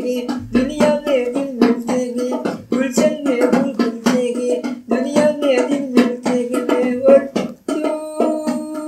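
A song: a voice singing a wavering melody over a strummed plucked-string accompaniment with a steady beat, which gives way to held notes near the end.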